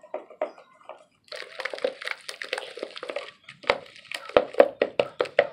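Slime being stirred in a bowl: a wet squishing, then a quick run of clicks, about four a second, as the stirrer knocks against the bowl.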